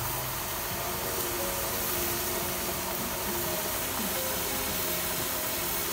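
Steady sizzle of suckermouth armored catfish frying in oil in a wok with lemongrass stalks, with faint music underneath.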